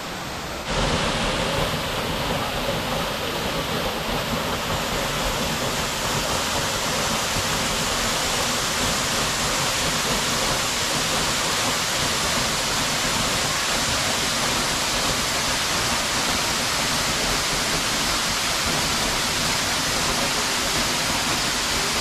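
Waterfall pouring: a steady, loud rush of falling water that jumps louder a little under a second in and then holds.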